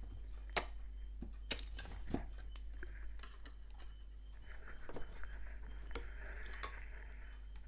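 Handling noise as the camera is lifted and repositioned: a few light clicks and knocks spread out over several seconds, over a steady low hum.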